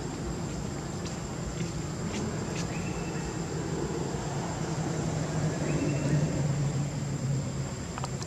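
A steady low engine-like hum, with a constant high-pitched whine over it, a few faint clicks, and two short high tones about three and six seconds in.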